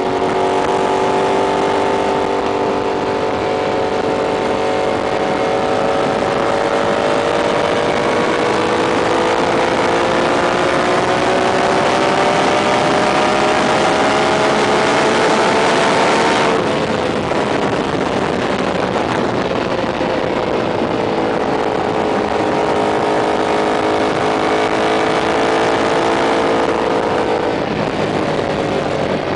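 Honda VF1000R's V-four engine running under way. Its pitch climbs slowly for about sixteen seconds, then drops suddenly. It runs lower and fairly steady after that, easing down a little more near the end.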